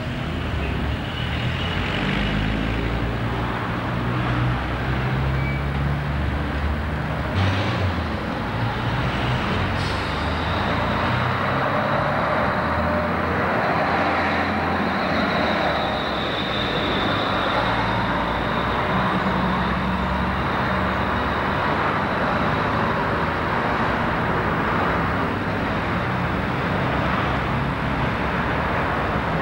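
Double-decker buses' diesel engines running and moving along a street, amid general traffic noise, with a faint high whine about halfway through.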